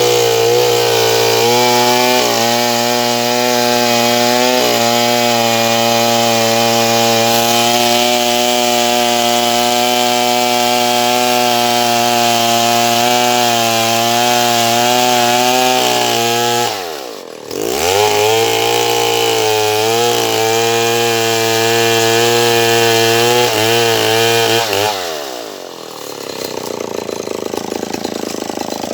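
Stihl 070 chainsaw, a big single-cylinder two-stroke, running at high revs through sengon wood. Its revs dip sharply and pick back up about two-thirds of the way through. Near the end the throttle is let off and the engine drops to idle.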